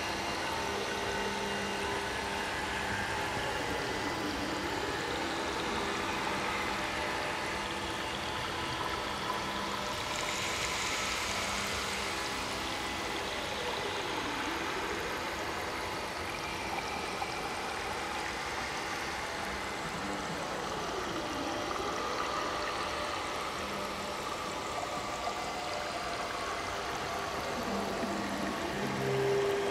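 Ambient soundtrack: a steady hiss like running water under held drone tones, with slow pitch sweeps that dip and rise again four times. The hiss grows brighter for a couple of seconds about ten seconds in.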